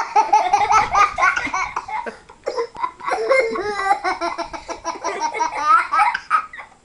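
Young children laughing hard: quick strings of high-pitched giggles and belly laughs, with a little babbling in between.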